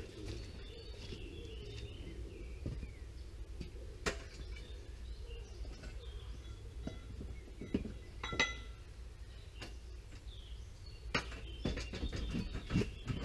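Scattered knocks and metallic clinks from a metal ladder being handled and set against a timber porch frame, one clink ringing briefly about eight seconds in, with a cluster of knocks near the end. Birds chirp faintly in the background.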